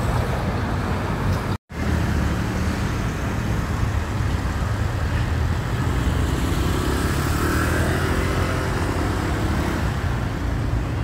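Road traffic on a city street: cars and vans driving past with their engines running, a steady low rumble. The sound cuts out completely for a moment about one and a half seconds in.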